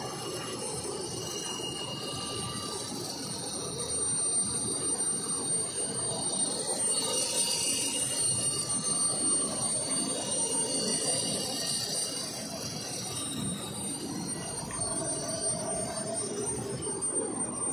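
Large heavy-duty lathe running as it turns a big steel roll: a steady machine rumble with several steady high-pitched ringing tones over it. It gets a little louder about four seconds in.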